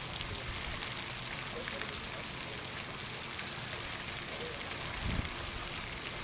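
Spray from a hippo-shaped pond fountain's jets falling back onto the pond, a steady rain-like patter of water on water.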